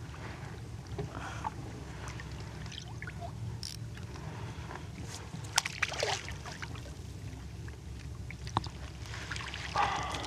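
Water sloshing and trickling against a kayak over a steady low rumble, with scattered small clicks and knocks, two sharper ones about five and a half and six seconds in.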